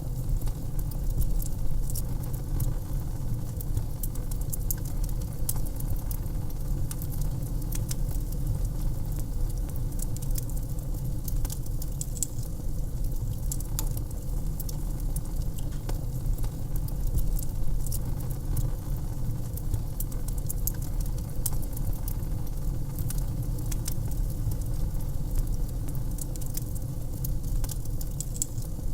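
Wood fire crackling in a fireplace: frequent sharp pops and snaps, scattered irregularly over a steady low rumble.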